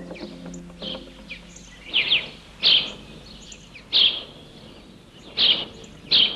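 Cartoon bird calling: five loud, short calls spaced about a second apart over the last four seconds, with a few faint chirps before them.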